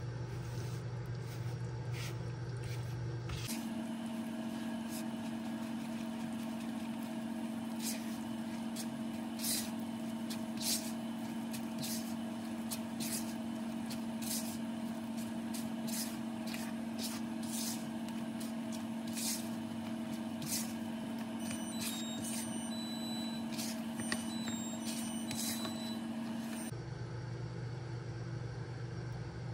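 Silicone spatula stirring thick chocolate cake batter in a plastic mixing bowl, with scattered clicks and taps against the bowl. Underneath is a steady low hum that changes pitch a few seconds in and again near the end.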